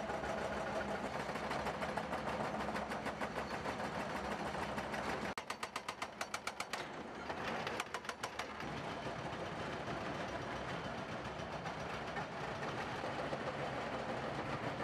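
Excavator-mounted hydraulic breaker hammering reinforced concrete, rapid blows several times a second through the middle stretch. Steady running of excavator engines lies underneath and carries on before and after.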